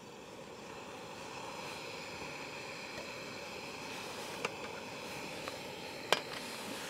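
Jetboil Minimo gas canister stove burner running with a steady hiss, growing slightly louder in the first second, while it heats water in its pot. Two sharp metallic clicks, about four and a half and six seconds in, as the pot lid is handled.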